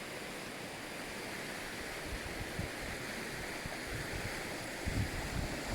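Steady rush of water from the Jagala waterfall and its river. From about two seconds in, wind buffets the microphone in low gusts that grow stronger near the end.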